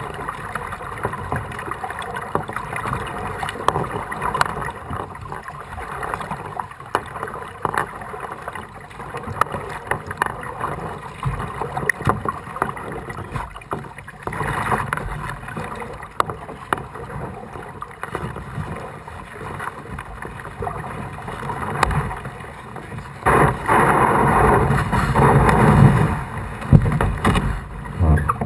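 Kayak paddling through floodwater: a steady wash of water splashes and drips from the paddle strokes, louder for a few seconds near the end.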